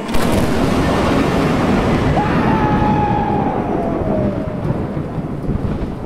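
Thunderstorm sound effect: thunder breaking suddenly at the start and rolling on under heavy rain, easing off towards the end. In the middle a thin whistling tone slowly falls in pitch.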